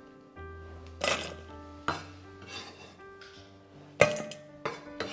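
Kitchenware being handled: about four sharp clinks and knocks of dishes and utensils, the loudest about four seconds in, over soft background music with held notes.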